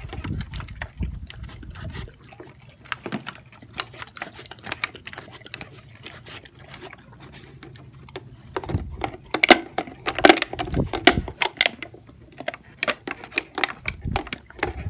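Plastic water bottle crackling and clicking as an American Bulldog chews and licks at it to drink, with wet mouth sounds. Irregular clicks throughout, in a louder, busier stretch from about eight and a half seconds to twelve seconds in.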